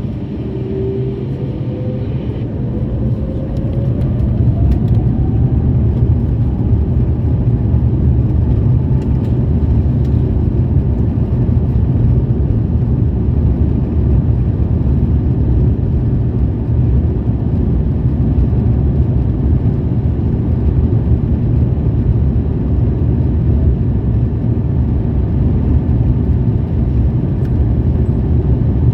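Airbus A350-900 cabin filled with the Rolls-Royce Trent XWB engines spooling up: a rising whine over the first few seconds under a growing rumble. The rumble then settles into a loud, steady drone at high thrust, as on the takeoff roll.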